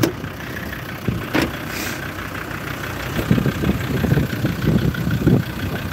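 Land Rover Discovery Td5's 2.5-litre five-cylinder turbodiesel idling, with a sharp knock about a second and a half in.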